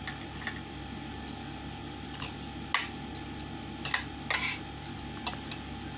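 Spoon and fork clicking and scraping against a plate while eating: several light, separate clinks a second or so apart, over a steady background hum.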